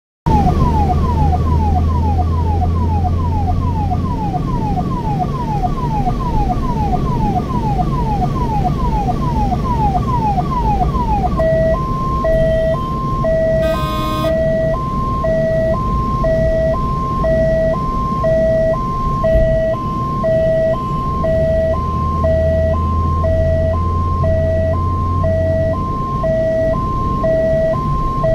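Ambulance electronic siren over road and engine noise: a fast falling wail repeating about twice a second, which switches about eleven seconds in to a two-tone hi-lo pattern of about one cycle a second. A short click comes in about fourteen seconds in.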